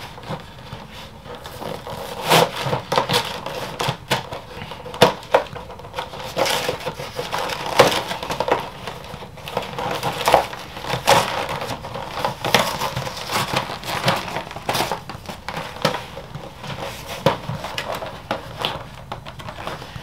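Thin clear plastic blister packaging being handled and turned over in the hands, crackling and clicking irregularly.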